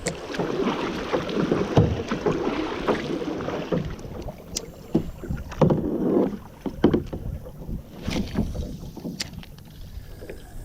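Kayak being paddled: water splashing and rushing with the paddle strokes, heaviest over the first few seconds and again about six seconds in, with scattered sharp knocks against the hull.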